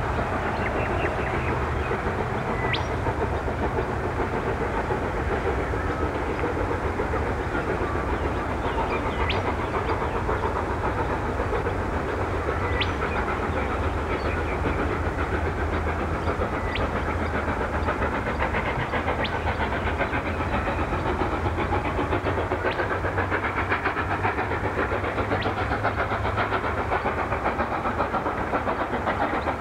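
South Maitland Railways 10 class steam tank locomotives working a train, a steady rumble of exhaust and rolling stock, with a faint sharp tick every few seconds.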